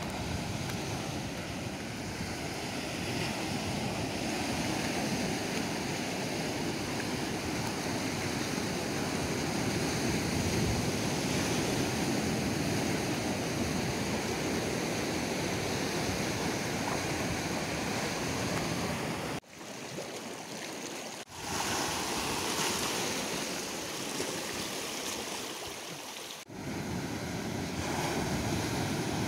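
Sea surf washing and breaking on a rocky shore, a steady rushing wash with a low rumble of wind on the microphone. The sound drops away abruptly around two-thirds of the way in, recovers, and dips again sharply near the end.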